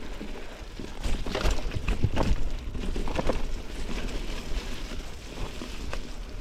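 Mountain bike riding over a rough, leaf-covered forest trail with roots: irregular knocks and rattles from the bike, over a steady low rumble.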